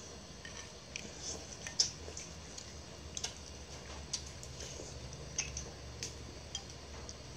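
People eating: irregular light clicks and soft wet chewing sounds over a low steady hum.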